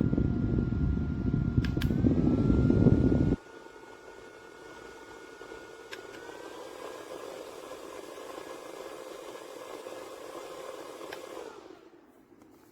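JISULIFE handheld USB fan running with a steady motor whine, its airflow rushing loudly against the microphone for the first few seconds. Button clicks step the fan up in speed twice, each raising the whine's pitch. Near the end a click switches it off and the whine winds down.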